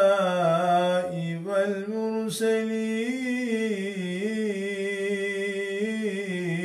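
A man's solo voice chanting the salâ, a melismatic Arabic mosque call, unaccompanied. He draws out long notes with a wavering, ornamented pitch.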